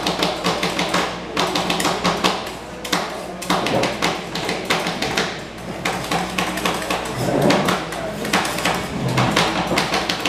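Two metal spatulas chopping and scraping on a frozen steel pan, mashing rolled-ice-cream base and toppings together. Rapid runs of sharp metal taps, several a second, with a couple of brief lulls.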